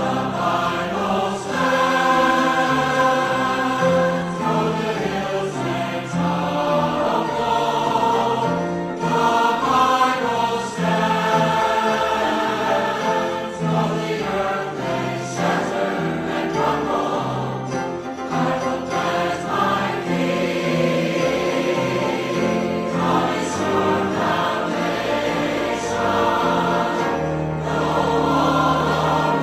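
Church choir singing a hymn with accompaniment.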